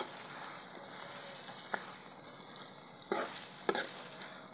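Grated bottle gourd sizzling steadily in ghee and sugar syrup in a wok, the syrup nearly cooked down, while a steel ladle stirs it. The ladle scrapes and clinks against the pan twice a little after three seconds in.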